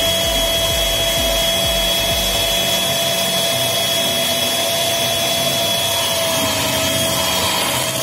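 Electric hand mixer running at a steady speed, its beaters churning a thick cream cheese filling, with an even motor whine.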